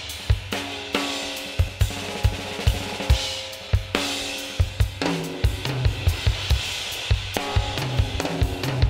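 Soloed drum-kit recording playing a steady beat of kick, snare and cymbals, run through a bus compressor set to grab the drums hard.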